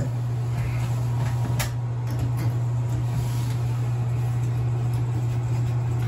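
Bathroom ceiling exhaust fan running with a steady low hum. A few light clicks and knocks come from handling the fan-light fixture's cover and bulb, the clearest about a second and a half in.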